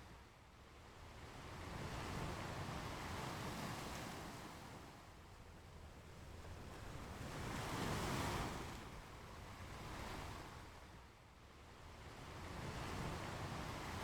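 Ocean waves washing onto a beach, swelling and fading every few seconds, loudest about eight seconds in.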